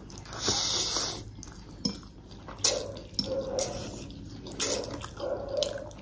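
Close-up eating sounds of a mukbang of kima noodles and momo: a wet slurping rush about half a second in, then several sharp clicks of cutlery against a plate.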